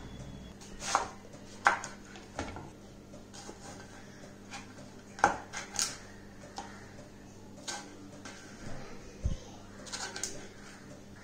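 Chef's knife cutting a raw green mango on a wooden chopping board: uneven, sharp knocks as the blade goes through the firm flesh and meets the board, with one duller thud about nine seconds in.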